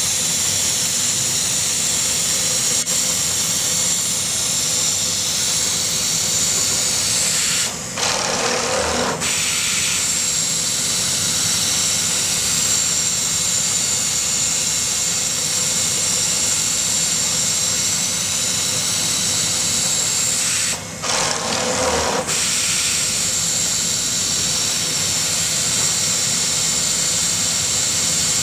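Jooke automatic template sewing machine with laser cutter at work: a steady hiss with machine noise beneath. The hiss breaks off briefly twice, about a third of the way in and again about three quarters in.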